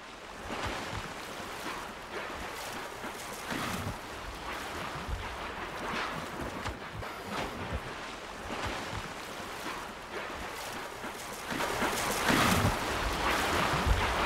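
Sea waves washing on open water, a rushing noise that rises and falls and grows louder near the end.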